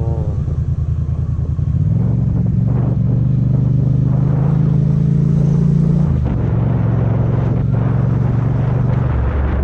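Yamaha MT-07 parallel-twin motorcycle engine running under way. The engine note steps up about two seconds in, drops back around six seconds in and drops again near the end, as with throttle changes and gear shifts.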